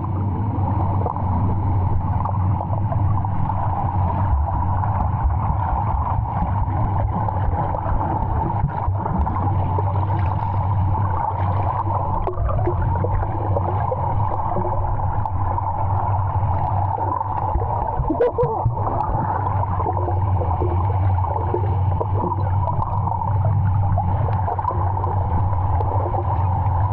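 A boat's motor running steadily: a constant low hum that holds the same pitch throughout.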